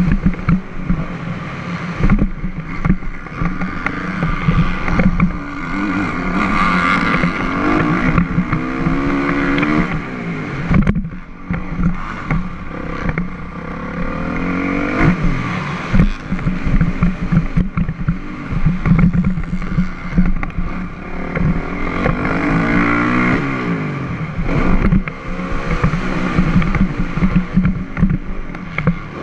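Motocross dirt bike engine heard close up from a camera mounted on the bike, revving up through the gears and backing off again and again. Frequent knocks come from the bike hitting bumps and landings.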